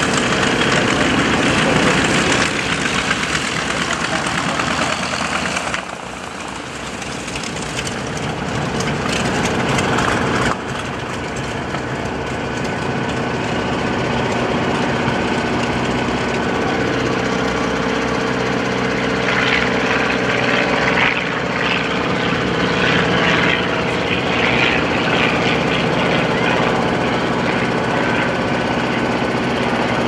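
Small piston engines of World War II liaison light planes running steadily as the planes fly past overhead, propellers turning. The sound dips suddenly about six seconds in and comes back up suddenly about ten and a half seconds in.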